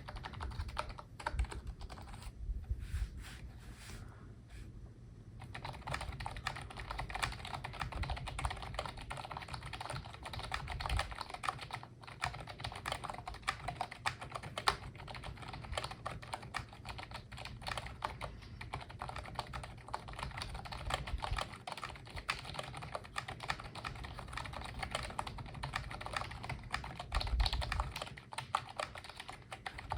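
Typing on a Trueque wireless full-size keyboard sold as silent, its keys giving soft clicks. A few scattered keystrokes come first, then steady, fast typing from about five seconds in.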